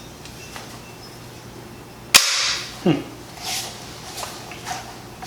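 Charles Daly N4S 12-gauge bullpup shotgun dry-fired: a single sharp snap of the trigger releasing, about two seconds in, with a few faint handling clicks before and after.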